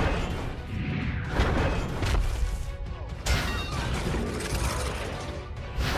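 Mechanical clanking and crashing sound effects over background music, with sharp hits about one and a half seconds and three seconds in, above a heavy low rumble.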